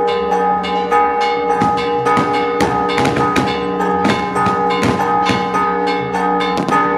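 Church bells pealing: several bells struck in quick, irregular succession, their tones ringing on and overlapping.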